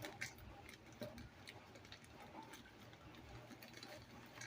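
Near silence with a few faint, light clicks.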